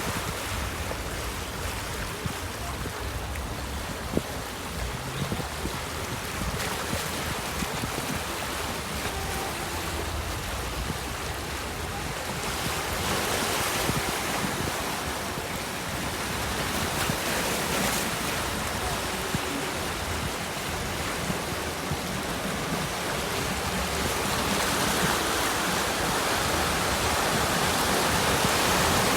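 Sea waves breaking and washing on a shore, a continuous rushing surf that swells louder about halfway through and again near the end, with some wind on the microphone.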